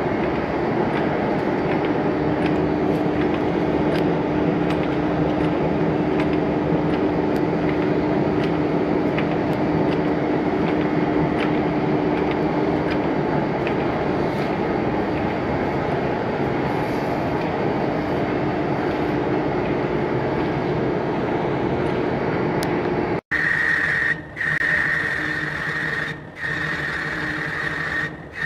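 Large lathe with a 6-foot chuck spinning a 5-ton crusher impact rotor: a steady mechanical rumble with a low hum and faint ticks. About five seconds before the end it cuts to another machine tool turning a large round part, with a steady high whine broken by three short gaps.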